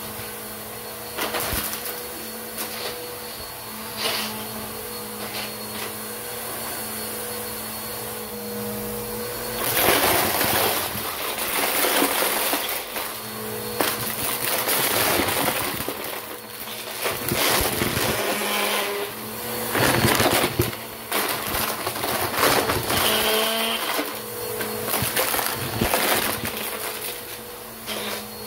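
Bissell upright vacuum cleaner running on carpet as it sucks up plastic bottle caps and fake coins, which rattle and crunch through the nozzle, the fake coins breaking up as they go. The motor hum is steady underneath, and the clattering pick-up grows dense and loud from about ten seconds in, in several waves.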